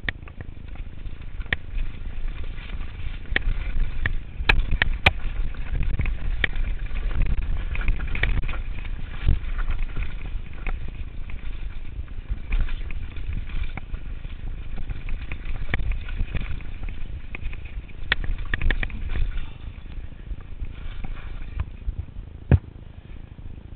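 Turner DHR downhill mountain bike riding fast down a dry dirt singletrack: wind rumble on a chest-mounted camera's microphone and tyre noise, with frequent sharp clicks and rattles from the bike over bumps. The noise eases in the last few seconds, and one sharp knock comes near the end.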